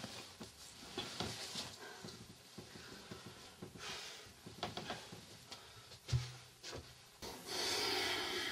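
Bedsheets rustling and soft movement as a man gets up from bed, a thump about six seconds in, then a bathroom sink tap starting to run near the end.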